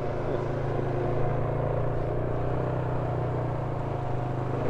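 Off-road vehicle engine running steadily at low trail speed, a constant even hum with no revving.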